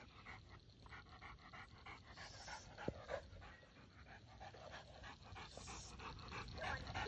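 Faint, rapid dog panting, about four breaths a second, from a dog straining in a tug of war.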